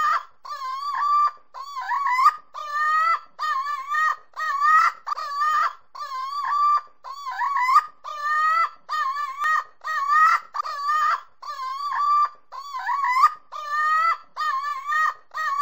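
Rubber chicken toy squawking over and over at an even rhythm, a little faster than once a second, each squawk a wavering, honk-like cry.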